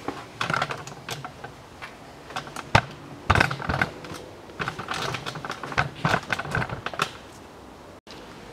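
Ratchet wrench clicking in several quick bursts, turning out the brake caliper bolts. A couple of sharp metal knocks come near the middle.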